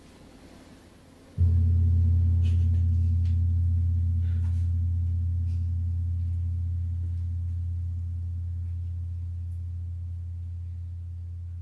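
A gong struck once about a second and a half in, its low hum ringing on and slowly fading.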